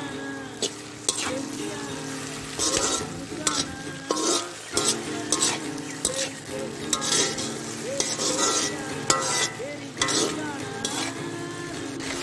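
Perforated steel ladle stirring and scraping sliced onions, green chillies and ginger-garlic paste around a black kadai, over the sizzle of the mixture frying in oil. The ladle strikes the pan in repeated strokes.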